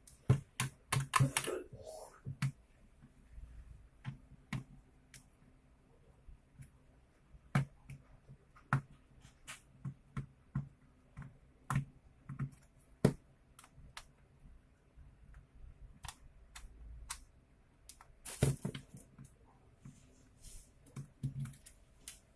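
Scattered sharp clicks and light knocks of a cordless drill's hard plastic housing and small parts being handled and worked apart, with a quick flurry near the start and another about three quarters of the way in.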